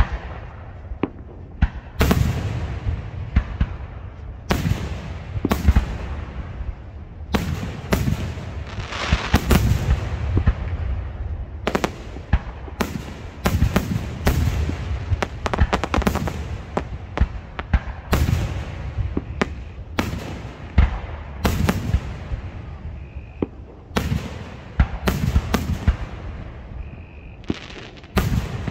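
Fireworks display: aerial shells bursting in quick succession, dozens of sharp bangs with rumbling tails, sparse for the first couple of seconds and then coming close together and overlapping.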